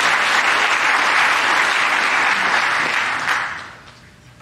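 Church congregation applauding, the clapping dying away about three and a half seconds in.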